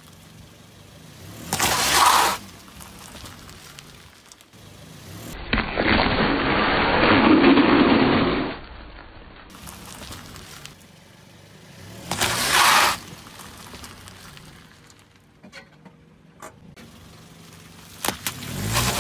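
A car tyre slowly rolling over and crushing a series of objects, heard as four separate bursts of crunching and squashing: short ones about two seconds in and about twelve seconds in, a longer one lasting about three seconds from about five seconds in, and a last one near the end as the tyre squashes a pile of Orbeez water beads.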